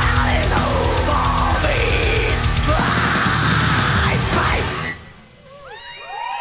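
Death metal band playing live, with pounding drums, distorted guitars and harsh vocals, until the song stops abruptly about five seconds in. The crowd then starts cheering and whooping.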